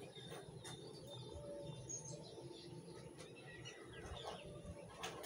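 Faint bird chirps in the background, over a metal spatula scraping and tapping in a metal kadai as onions and tomatoes are stirred.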